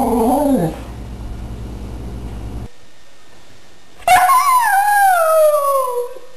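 Siberian husky howling a 'song': a wavering howl breaks off just under a second in. About four seconds in comes one long howl that slides steadily down in pitch for about two seconds.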